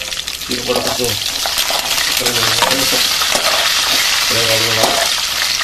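Tempering of dried red chillies, garlic, curry leaves and lentils sizzling in hot oil in a metal kadai, stirred with a spoon. The sizzle grows louder about a second and a half in.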